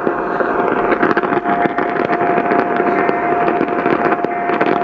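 Loud, crackling radio static with a steady whistle tone running through it, the sound of a weak, noisy weather-radio reception between broadcast messages.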